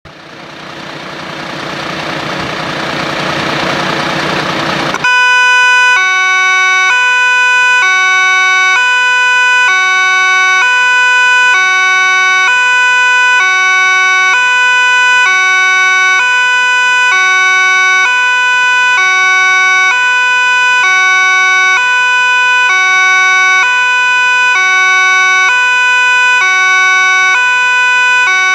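A rushing hiss swells for about five seconds, then a Finnish fire engine's two-tone siren starts and sounds steadily, alternating high and low notes a little over half a second each.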